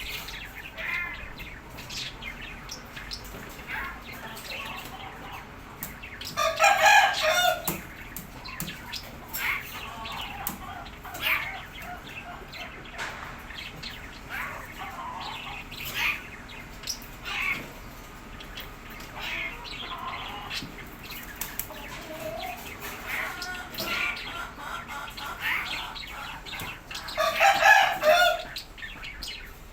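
Birds calling: two loud, drawn-out calls about twenty seconds apart, with many shorter, quieter calls in between.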